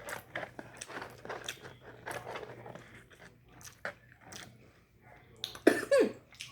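Close-up mouth sounds of someone chewing and biting into food, with soft crunching, then a loud cough about five and a half seconds in.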